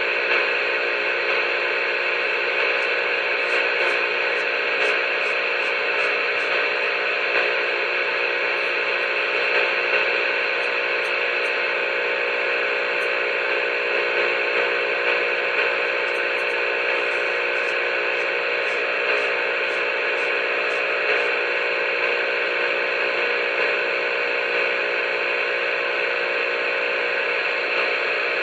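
Steady hiss of CB radio static from the receiver's speaker with the squelch open, with a faint hum under it; no one is transmitting.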